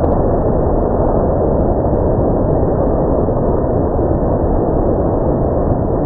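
Automatic car wash running: a steady rush of water spray with the cloth curtain strips washing over a car.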